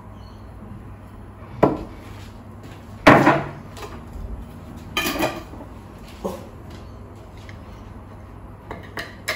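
Glass jars knocking and clinking against each other and a wooden benchtop: about five sharp knocks, the loudest about three seconds in, with a lid being put on a jar near the end.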